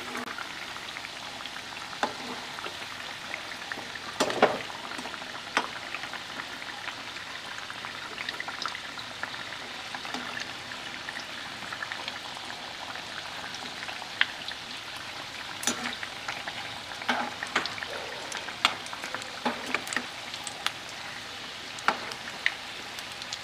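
Samosas deep-frying in a steel kadhai of oil on a low flame: a steady gentle sizzle. Scattered sharp clicks and a few knocks of a steel slotted spoon against the pan come as the samosas are turned, more often in the second half.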